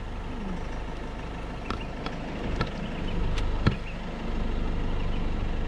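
Steady low engine hum with a few sharp clicks and knocks about halfway through, the last one the loudest.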